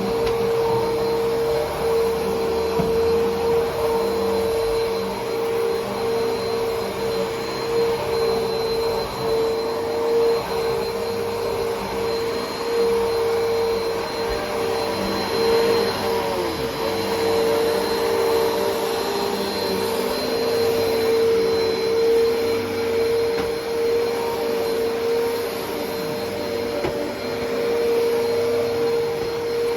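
Hoover WindTunnel T-Series upright vacuum cleaner running steadily while vacuuming, its motor giving a constant whine over a rushing hiss. The owner thinks the motor bearings are going bad, though the motor still sounds fine.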